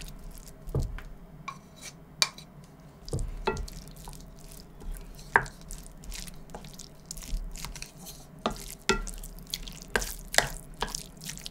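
A spoon clinking and scraping against a dish in a series of irregular short taps, as rice and curry are scooped and stirred.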